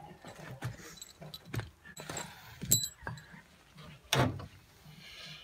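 Light knocks, taps and clatter of a treated-pine fascia board being handled and pushed up into place against the veranda framing, with two louder knocks, one about midway and one about four seconds in.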